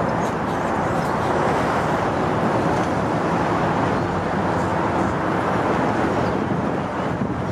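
Steady street traffic noise: a continuous hiss of passing vehicles, swelling slightly through the middle.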